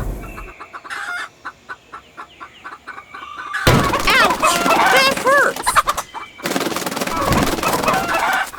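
Chickens clucking, faint at first, then louder and busier from about three and a half seconds in, with many short calls that bend up and down in pitch.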